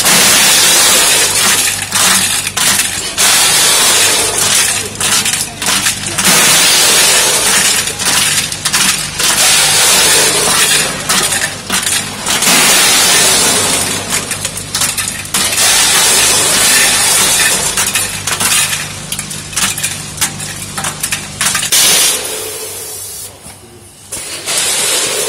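Ice cubes clattering and clinking through the stainless steel dimple-sheet hoppers of a multihead weigher as the buckets open and dump, over a steady machine hum. The clatter dies down near the end.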